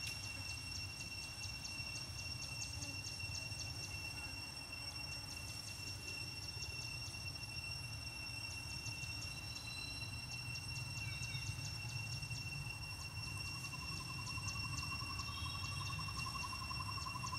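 Outdoor ambience: insects keep up two steady high-pitched tones and a fast, even ticking over a low rumble. A faint wavering trill joins in about three quarters of the way through.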